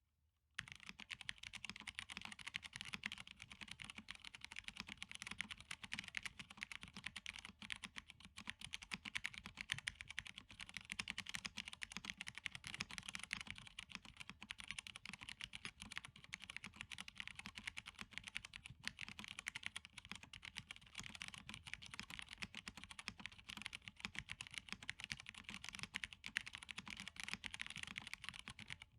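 Continuous fast typing on a MONOKEI Standard mechanical keyboard fitted with stock, unmodded MX Brown tactile switches. It starts about half a second in as a dense stream of keystroke clacks.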